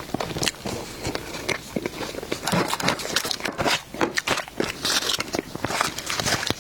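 Close-miked eating sounds: a person biting and chewing dessert, with many quick, irregular mouth clicks and smacks.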